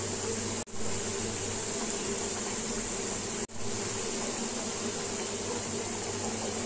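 Pieces of maida dough deep-frying in hot oil, a steady sizzle and bubbling from the freshly added namkeen, with a low steady hum underneath. The sound cuts out for an instant twice, about a second in and again halfway through.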